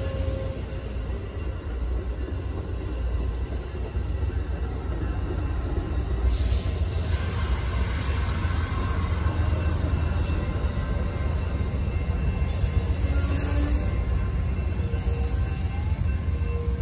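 Amtrak Superliner double-deck passenger cars rolling past on the track: a steady rumble of steel wheels on rail.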